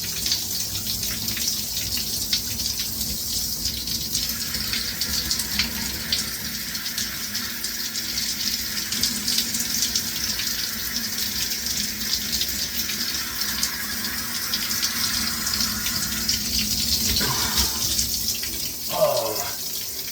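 Shower spray running steadily on its coldest setting, water splashing onto a person and the floor. There are a couple of short vocal sounds near the end.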